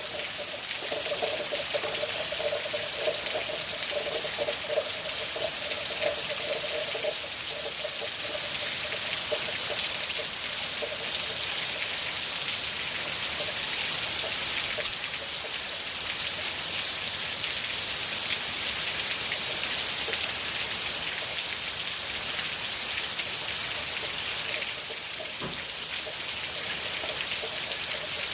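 Steady hiss of falling or running water, with a faint wavering hum through the first ten seconds or so.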